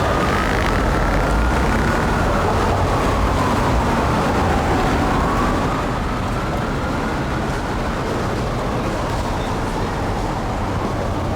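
Road traffic rumbling steadily, with an emergency vehicle's siren wailing, slowly rising and falling in pitch over and over.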